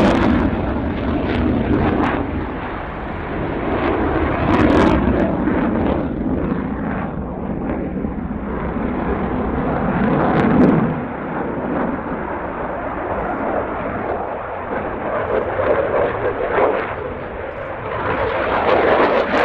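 Dassault Rafale's twin Snecma M88 turbofan engines: a continuous jet roar from a display manoeuvre, with afterburners lit at the start. It swells and fades as the jet turns, is loudest about ten seconds in, and drops away sharply just after.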